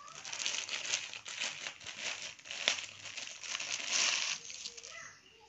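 Clear plastic packaging bag crinkling and rustling as hands handle and open it around a folded saree, a dense run of quick crackles that dies away about four and a half seconds in.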